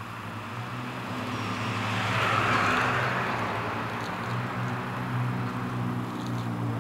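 A vehicle passing by: tyre and road noise swells to a peak about two and a half seconds in and then fades, over a steady low hum.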